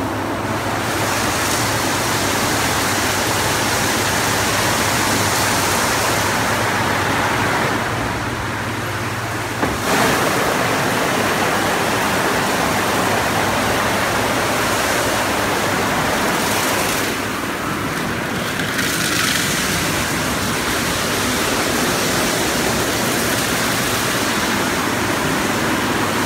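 Automatic rollover car wash running: rotating cloth brushes scrubbing over a small hatchback's wet body with water spraying, over a steady low machine hum. The noise changes character a couple of times as the brushes move along the car.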